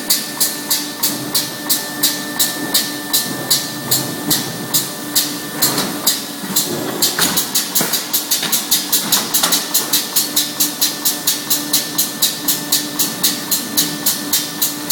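Fully automatic CDO 250 clipping machine running, its clipper snapping in a steady fast rhythm of about three sharp clicks a second over a steady machine hum.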